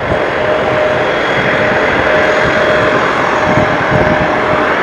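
Boeing 737-800's CFM56 turbofan engines running up for takeoff: a steady rushing jet noise with a faint steady whine that comes and goes.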